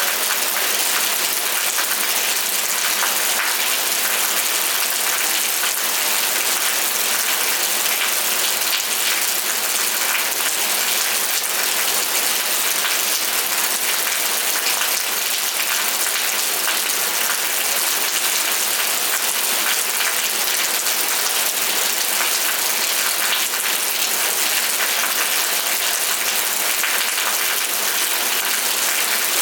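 Steady rain falling: an even hiss of many fine drops, unchanging throughout.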